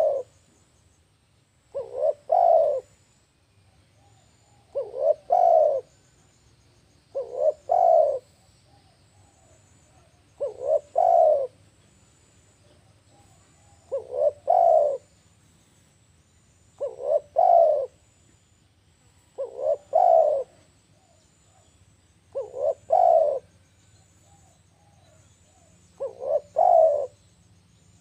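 Spotted dove cooing: a short phrase of about three low coos, the last the longest and loudest, repeated steadily every two and a half to three seconds.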